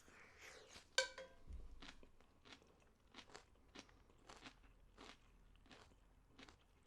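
Quiet chewing of a mouthful of garlic fried rice: soft, scattered mouth clicks and faint crunching, with one sharper click about a second in.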